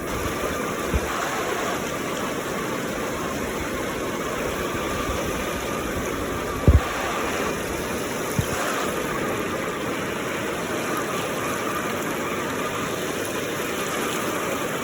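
River water rushing steadily over rocks, with three dull low thumps: one about a second in, the loudest near the middle, and one a couple of seconds later.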